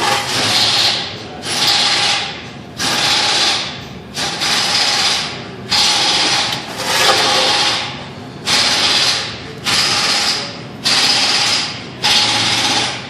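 A 15 mm ratcheting wrench backing out the oil drain plug: about ten bursts of ratchet clicking, each about a second long, with short pauses between strokes.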